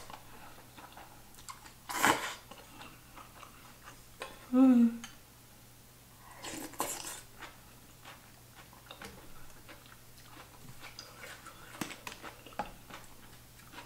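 Eating sounds: two short slurping sips of stew broth from a bowl, with a brief hummed "mm" between them. Later come faint clicks of dishes and a small bottle being handled on the table.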